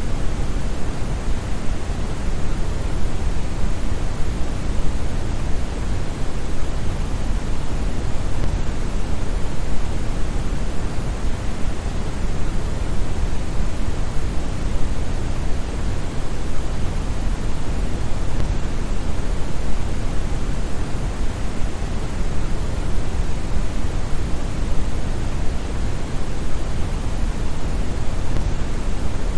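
Steady synthetic brown noise: an even, deep hiss with most of its energy in the bass and little in the treble, like a distant waterfall, unchanging throughout.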